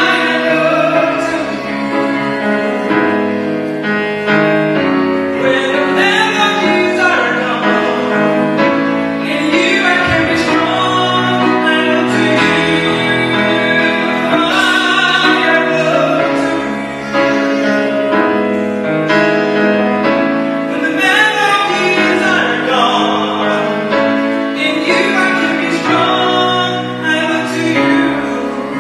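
A man singing into a microphone while accompanying himself on a grand piano, in several long phrases over sustained piano chords.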